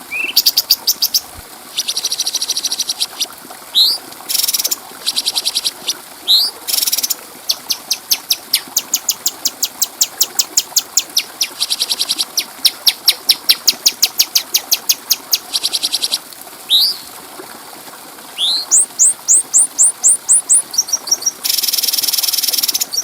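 Cucak cungkok bird singing: fast, high chattering trills broken up by short rising whistled notes, with a run of quick rising notes and a dense buzzy trill near the end.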